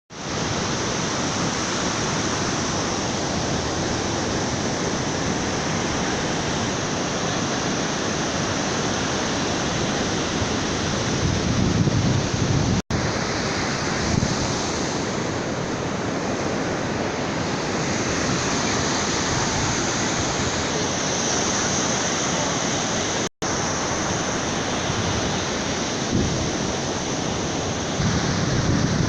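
Steady rushing outdoor noise with a few low rumbling swells, cutting out abruptly twice.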